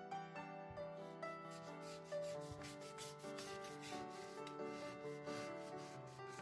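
Soft piano background music with a run of quick rubbing strokes over it, about three a second, starting a couple of seconds in.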